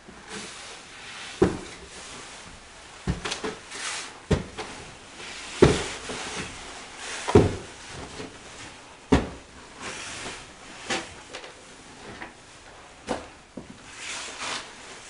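A series of sharp knocks and thumps, about eight of them, spaced irregularly a second or two apart, with a steady rustling noise between them.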